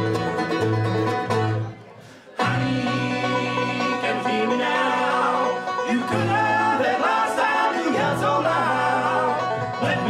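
Acoustic bluegrass band playing: banjo, mandolin, upright bass and acoustic guitar. The whole band stops briefly about two seconds in, then comes back in, and singing joins.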